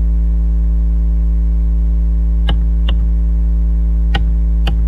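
Loud, steady electrical mains hum, with four short, sharp keyboard key clicks in the second half as answers are typed into the command prompt.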